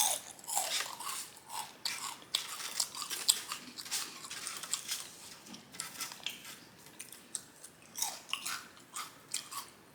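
A person chewing a mouthful of several potato chips at once, close to the microphone: a run of irregular crunches.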